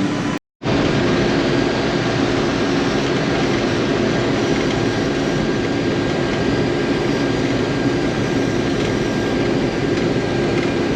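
Axial-Flow combine running steadily while cutting wheat: an even engine and threshing drone with a steady low hum. The sound cuts out for a split second near the start.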